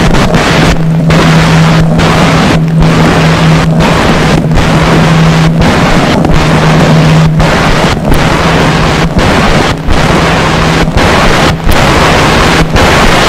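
Experimental turntable noise played through a DJ mixer: a loud, harsh roar over a steady low hum, chopped by brief cut-outs about every second. The hum weakens after about seven seconds.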